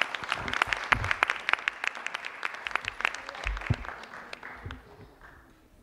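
Audience clapping, a dense patter of handclaps that thins out and fades over the last second or so.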